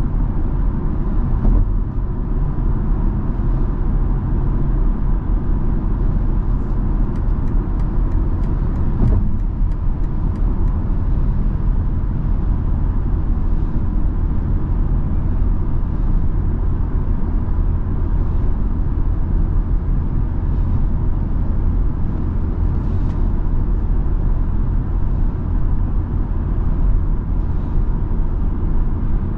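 Cabin noise of a BMW X3 M40i cruising on the freeway: a steady, loud low drone of tyres, road and engine. A short run of faint, evenly spaced ticks comes a few seconds in.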